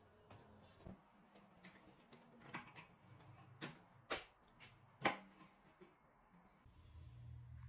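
Faint, scattered clicks and light knocks of things being handled, about half a dozen over several seconds. A low steady hum comes in near the end.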